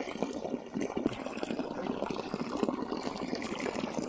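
Water splashing and running, a steady dense rush full of small splashes.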